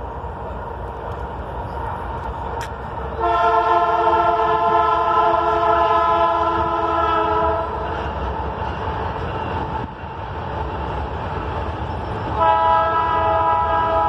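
Freight train's air horn sounding a long multi-note blast of about four seconds, then a second blast starting near the end, over the steady rumble of the train rolling across a trestle.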